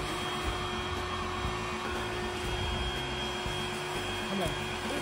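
A steady machine hum with a low rumble underneath, unchanging throughout.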